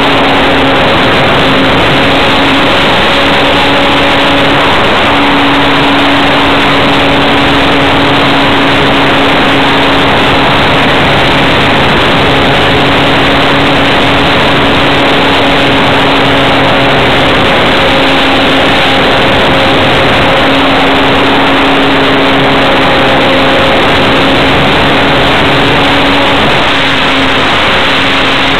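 Onboard sound of an electric RC model plane in flight: the motor and propeller drone at a nearly steady pitch under a loud rush of airflow noise.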